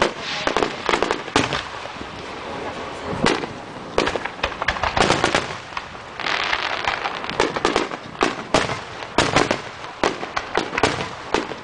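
Aerial fireworks going off: a rapid, irregular series of sharp bangs from bursting shells, with spells of dense crackling.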